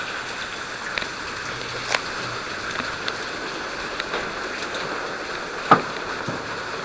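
Runoff water pouring down in a steady rush, with separate drops splashing down now and then; the loudest splash lands about three-quarters of the way through.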